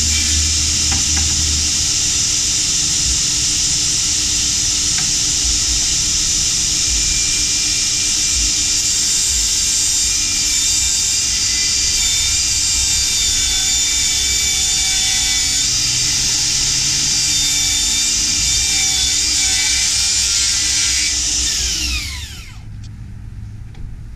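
DeWalt FlexVolt battery-powered circular-blade saw running and cutting wood with a steady high whine. It is switched off about 22 seconds in, and the blade winds down with a falling pitch.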